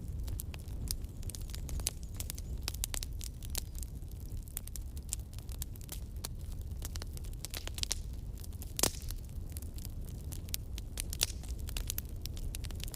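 Wood fire crackling: many irregular sharp pops and snaps over a steady low rumble of the flames, with one louder pop about two-thirds of the way through.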